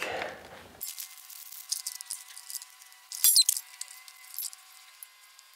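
Small metal parts and hand tools being picked up and handled, giving light clicks and clinks, with a louder clinking rattle about three seconds in.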